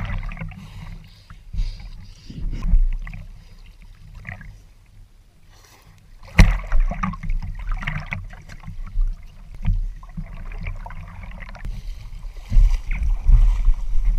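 Water splashing and sloshing around a camera at water level as a person swims in a lake, with wind rumbling on the microphone. A loud knock about six seconds in and more handling knocks near the end.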